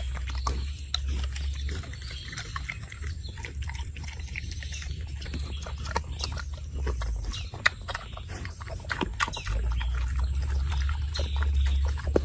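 Pigs grunting and rooting, with many short clicks and knocks scattered through, over a steady low rumble.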